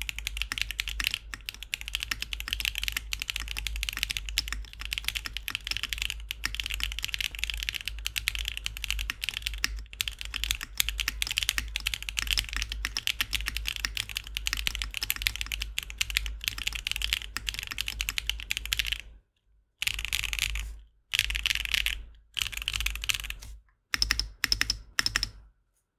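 Mechanical keyboard typing: Akko Cream Yellow V3 Pro linear switches in a Tofu60 2.0 keyboard, keys pressed in a fast continuous stream. About three-quarters of the way through it breaks into short bursts with brief pauses, then stops just before the end.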